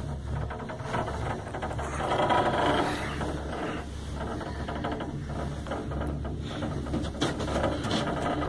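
Enclosed ropeway gondola cabin travelling along its cable: a steady low hum with continual mechanical rattling and clicking, and a sharper clack about seven seconds in.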